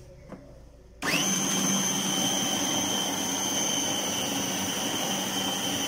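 A faint click, then about a second in a food processor's motor switches on and comes up to speed. Its blade runs steadily through a chicken and boiled-potato mixture with a high whine.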